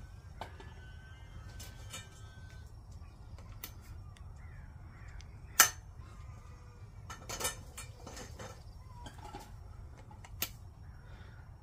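Hard plastic tubes and connectors of a children's water-play toy knocking and clicking as they are handled and pushed together, with a sharp click about halfway through. Faint calls, crow-like, sound in the background over a low steady hum.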